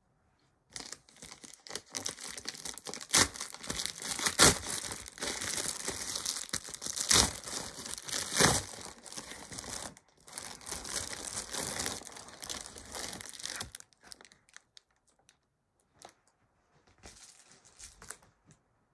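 Plastic bubble mailer being crinkled and torn open by hand, with several loud sharp rips, for about thirteen seconds; then a few faint clicks and a soft rustle.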